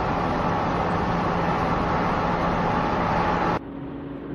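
A car driving along a road: steady engine hum and road noise. About three and a half seconds in it cuts abruptly to a quieter, steady hum heard from inside the car.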